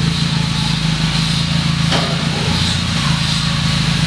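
BMW E30's engine idling steadily through its exhaust, an even low note with no revving.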